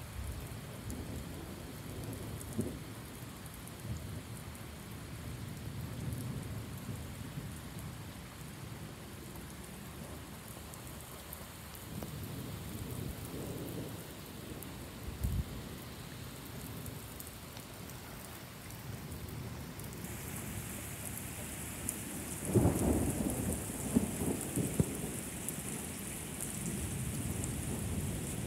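Steady thunderstorm rain falling on pavement and lawn, turning heavier about two-thirds of the way in. Soon after, a loud rumble of thunder with a few sharp cracks lasts a few seconds.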